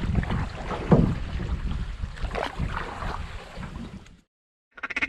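Small boat moving on the water with wind buffeting the microphone and a few knocks, which cuts out suddenly about four seconds in.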